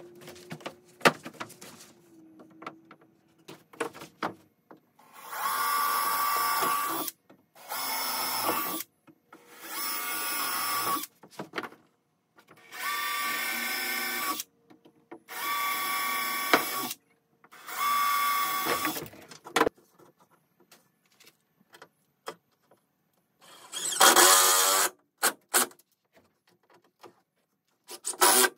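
Power drill driving screws into plywood in short runs: six runs of about two seconds each at an even pace, then a pause and one more run near the end, with light knocks of wood being handled in between.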